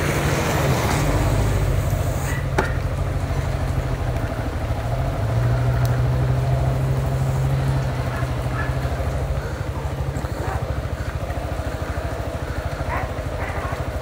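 A vehicle engine idling with a steady low hum, a little louder for a few seconds mid-way before easing back.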